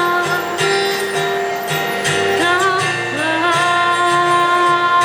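Instrumental break of a Mandarin pop song: guitar accompaniment over a steady beat, with held melody notes that bend in pitch about halfway through.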